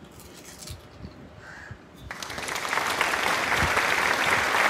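Applause that starts about two seconds in, swells and holds steady, then cuts off abruptly: a crowd-applause sound effect.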